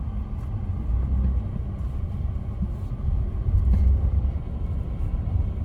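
Car moving slowly, heard from inside the cabin: a steady low rumble of engine and tyres.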